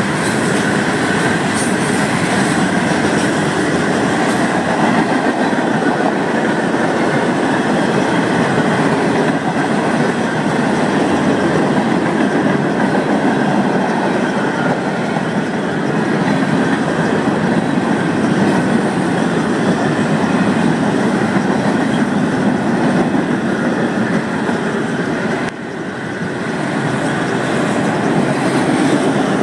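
Florida East Coast Railway freight cars, boxcars and autoracks, rolling past close by: a steady, dense rumble of steel wheels on the rails, with a brief drop in level about 25 seconds in.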